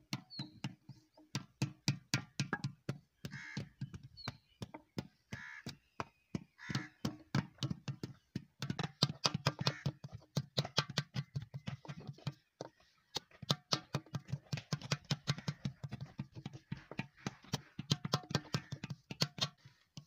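Flat wooden paddle slapping the outside of a wet clay water pot, about four dull slaps a second with a few short pauses. This is the beating stage of paddle-and-anvil pottery, which shapes and thins the pot's wall against the potter's hand inside.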